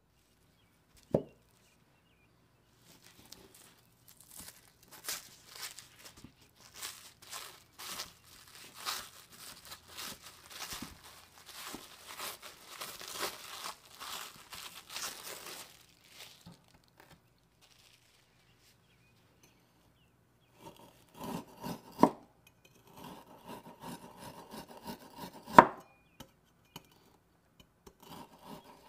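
Plastic cling wrap crinkling as it is peeled off a log of seasoned ground lamb, then a cleaver rasping through the firm meat log in slicing strokes, with two sharp knocks of the blade against a wooden cutting board. A single knock comes about a second in.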